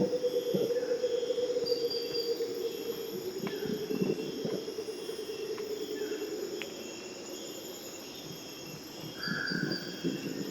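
Purús red howler monkeys howling in chorus, a deep rough roar that eases off for a couple of seconds and then swells again near the end. A steady chorus of rainforest insects shrills underneath, with a few short bird calls.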